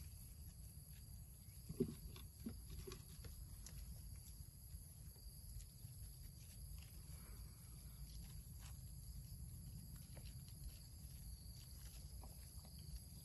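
Faint rustling and snapping of leafy stems as a gloved hand pushes through the plants, scattered small clicks with a louder knock about two seconds in, over a low steady rumble and a steady high-pitched hum.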